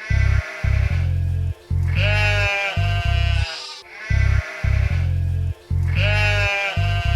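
Sheep bleating twice, a long wavering baa about two seconds in and again about six seconds in, over a children's music track with a heavy bass beat.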